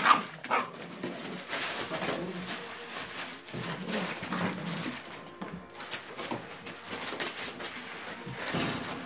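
Six-week-old Beauceron puppies scuffling and playing on newspaper bedding: paper crackling and rustling under their paws and teeth, with occasional small puppy vocalisations.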